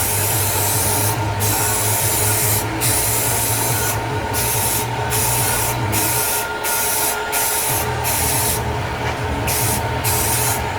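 Power tool with an abrasive wheel stripping rust from steel: a steady motor hum under a harsh scraping hiss that drops out briefly again and again as the wheel is lifted off and set back on the metal.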